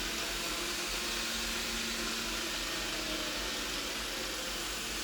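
Robot vacuum cleaner running in spot-cleaning mode: a steady hiss of its suction fan with a faint steady hum underneath.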